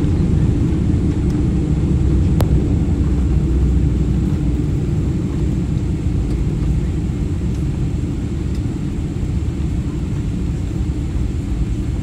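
Cabin noise of a Boeing 777-300ER rolling out on the runway after landing: a steady low rumble of its GE90 engines and the wheels on the concrete, fading gradually as the airliner slows. A single faint click about two and a half seconds in.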